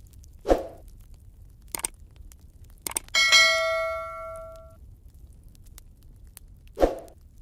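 Subscribe-button animation sound effects: a short pop, a couple of mouse clicks, then a bell ding that rings out for about a second and a half, and another short pop near the end.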